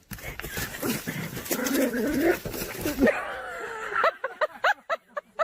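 A dog whining and whimpering: a wavering, noisy cry for about three seconds, then a quick run of short high whines near the end.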